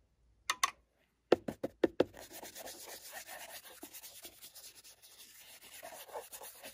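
A round paintbrush scrubbed over a paper model roof sheet, working dry weathering powder into it: a steady, dry, scratchy rubbing, after a few sharp taps in the first two seconds.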